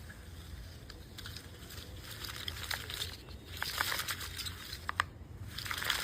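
Recoil starter taken off a four-stroke brush cutter, worked by hand: several rasping pulls with sharp clicks, starting about two seconds in. The starter and its springs are working properly.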